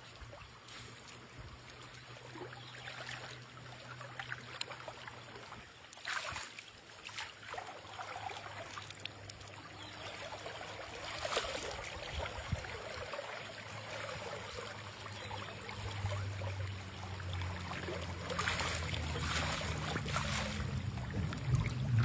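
Shallow river water running over stones, with splashes as bare feet wade through it. A low hum underneath grows louder in the second half.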